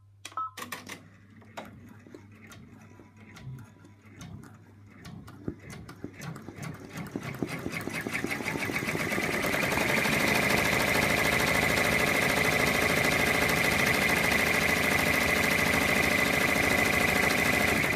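Embroidery machine stitching out the outline of an in-the-hoop key fob. A few clicks come in the first second. The fast, even stitching then builds up over several seconds and runs loud and steady through the second half.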